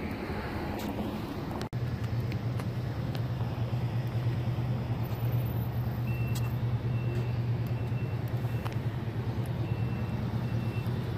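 A motor vehicle's engine running with a steady low hum, starting about two seconds in. From about halfway through, faint repeated high beeps sound on and off.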